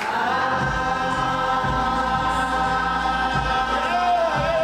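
Middle school chorus holding a long final chord, gospel style, on the word "smile", with low notes underneath that change every second or so. Near the end one voice bends up and down above the held chord.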